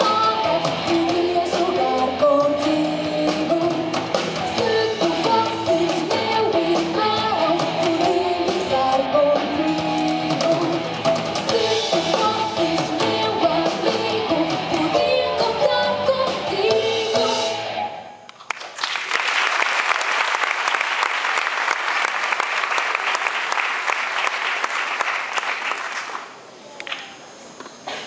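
Live band of drum kit, electric guitars and keyboard playing with singing, stopping abruptly about two-thirds of the way through. Audience applause follows at once and fades out near the end.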